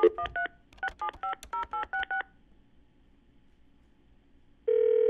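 Touch-tone telephone keypad: a dial tone cuts off, then a quick run of about ten dialing beeps in the first two seconds. After a pause, a steady ringing tone about a second long sounds down the line near the end.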